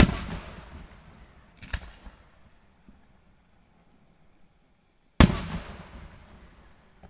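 Two loud fireworks bangs about five seconds apart. Each one fades over a second or more and is followed by a fainter, sharper crack a little under two seconds later.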